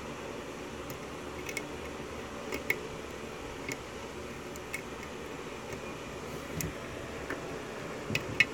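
Single-pin picking of a six-pin Dorma cylinder lock: light metallic ticks and clicks of the pick against the pins, scattered irregularly, with the sharpest pair near the end. A steady low hum sits underneath.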